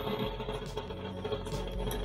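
Metal lathe running with its chuck spinning, the tool taking a light manual facing cut on the breech end of a relined rifle barrel: a steady hum with a thin high whine.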